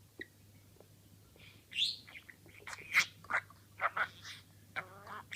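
Budgerigar chattering and warbling in a quick run of high chirps that starts after a few faint clicks, a little under two seconds in.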